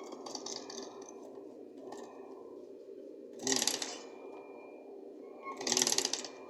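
Sewing machine stitching upholstery fabric in two short runs, one about halfway through and one near the end, with a low steady hum between the runs.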